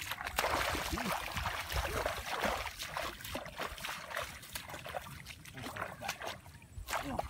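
Shallow muddy paddy water splashing and sloshing as hands churn through it, followed by a string of wet splashing steps as bare feet wade through the flooded grass.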